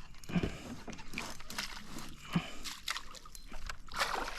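Water splashing and sloshing with scattered knocks and clicks, as a hooked smallmouth bass is played beside the boat for netting.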